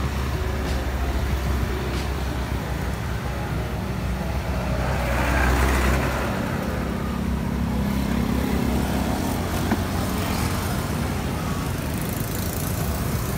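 Road traffic going past: a steady low engine rumble, with one vehicle passing louder about five seconds in.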